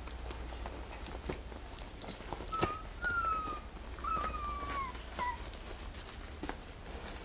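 Puppy whining: four short, high whines a little over halfway through, the second and third longer and sliding slightly down in pitch. Light clicks and taps sound between them.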